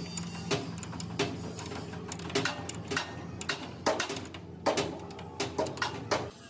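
Steel spanners clinking and knocking on a nut and bolt as they are worked, a run of irregular sharp metallic clicks, some coming in quick clusters.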